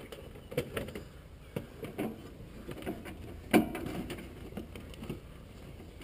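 Irregular clicks, knocks and rustling as wiring harness plugs are worked loose and pulled off a blower control board, with one sharper knock about three and a half seconds in.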